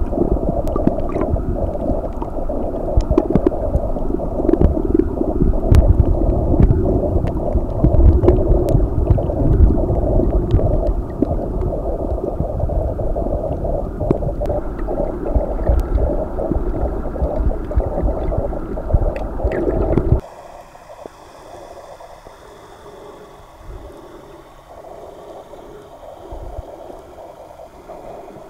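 Underwater sound picked up by a snorkeler's camera: a loud, muffled rumble of moving water with many scattered sharp clicks. About two-thirds of the way through it cuts off abruptly to a much quieter underwater hiss.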